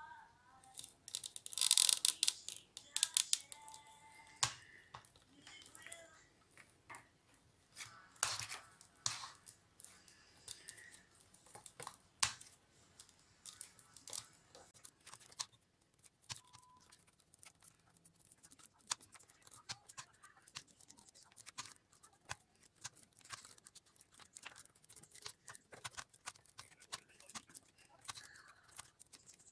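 Rolled newspaper tubes rustling and crackling as they are woven by hand between the paper stakes of a basket, with many small irregular clicks and louder crinkly rustles about two seconds in and again around eight seconds in.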